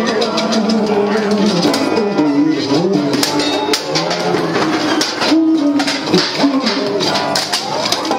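Live punk band playing loud, electric guitar with drums hitting steadily throughout.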